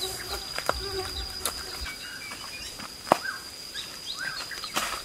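Forest ambience: a steady high insect drone with birds chirping in short rising notes, and a few sharp knocks and snaps, the loudest about three seconds in.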